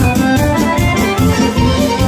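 Traditional Balkan folk music for the kolo dance, played loud with a fast, steady beat and a pitched melody line.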